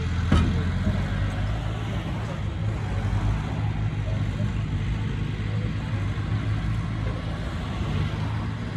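Heavy diesel engine of an earthmoving machine running steadily, with one sharp metallic knock just after the start.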